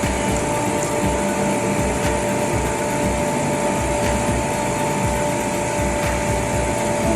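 Cold-room refrigeration compressor unit running steadily: an even whirring rush with a constant humming whine held throughout.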